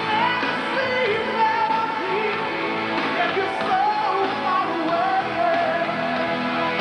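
Live AOR rock band playing, with a male lead singer singing long, sliding notes over the band's sustained chords.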